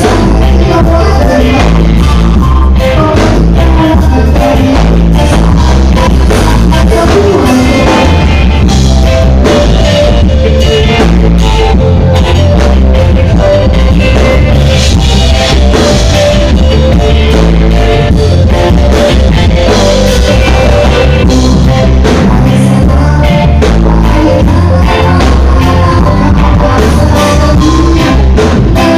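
Live reggae band playing loud, with a man singing into a microphone over keyboards, electric guitar, bass and drums; the bass is heavy.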